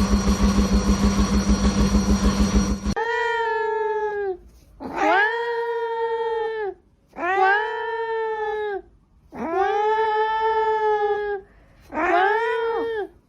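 A steady mechanical whirring with a fast pulse stops abruptly about three seconds in. It is followed by a domestic cat yowling: five long, drawn-out calls, each rising at the start and falling away at the end, with short gaps between them.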